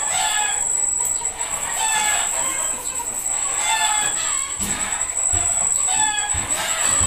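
Chickens calling every second or two, with a rooster crowing among them, over a steady high-pitched whine.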